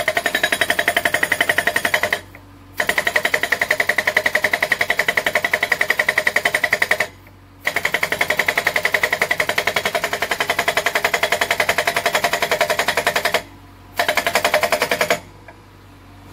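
Korean SH43HD hydraulic rock breaker hammering its chisel into a boulder: rapid, evenly spaced metallic blows, several a second. It runs in four bursts separated by short pauses and stops about a second before the end.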